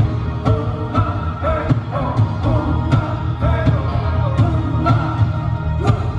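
Live rock band playing: a male lead voice singing over electric bass, drum kit and guitars, with a steady beat of drum hits about twice a second.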